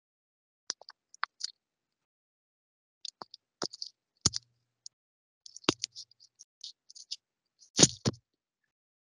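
Scattered sharp clicks, irregular, with a few louder knocks mixed in; the loudest are two knocks close together near the end.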